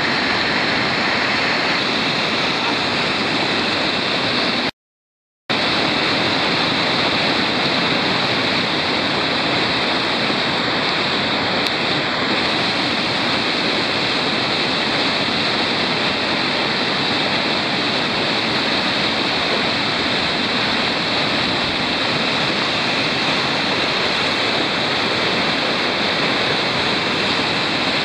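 Whitewater rapids rushing loudly over boulders, heard close up, a steady unbroken roar of water. The sound drops out completely for under a second about five seconds in.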